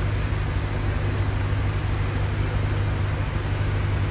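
Single-engine light aircraft's propeller engine droning steadily, heard inside the cockpit during the approach to landing: an even low hum under a constant rush of noise.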